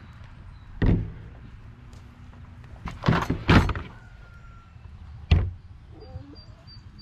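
A series of sharp knocks or thuds: one about a second in, a quick group of two or three near the middle, and one more a little past five seconds.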